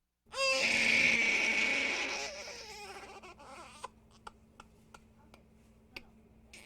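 Baby crying: one long, loud wail starts just after the beginning and fades after about two seconds into quieter sobbing. It ends with a few faint, short catches over the last three seconds.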